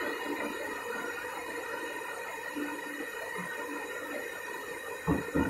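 White pepper making machine running steadily, its nylon-brush drum turning while water streams out of it into a plastic tub. A couple of thumps near the end.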